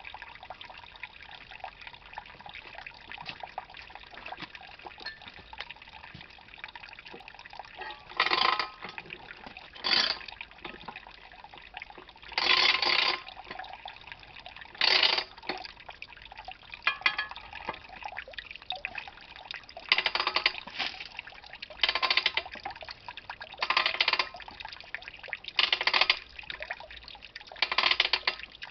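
Freshly pressed Pinot Gris grape juice trickling from a wooden basket press's spout into a plastic tub. From about eight seconds in, louder rushing bursts under a second long come roughly every two seconds.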